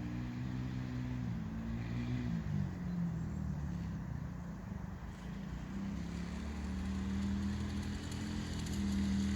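Small 110 cc four-stroke engine of a children's mini ATV running. Its note drops about two to three seconds in as it eases off, then climbs again and holds higher toward the end.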